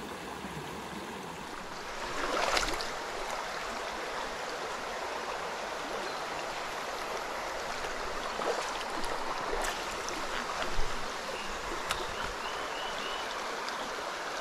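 Mountain stream running over stones, a steady rush of water that swells briefly about two seconds in, with a few faint ticks.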